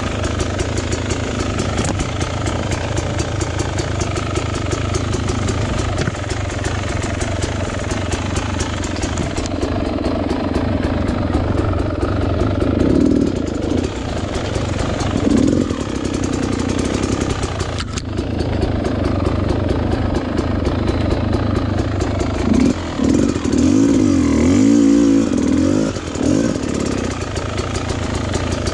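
Off-road dirt bike engine running at low revs, with a few short bursts of throttle in the middle and a longer rev up and back down near the end.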